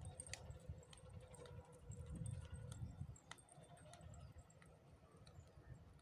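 Near silence: faint outdoor background with a low rumble and a few scattered soft clicks.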